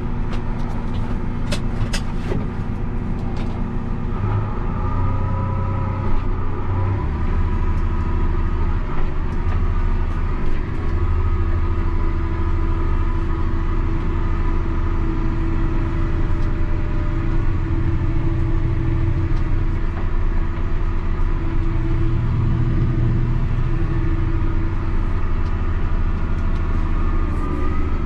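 Versatile tractor's diesel engine running steadily while pulling a high-speed disc, with a few sharp clicks about two seconds in.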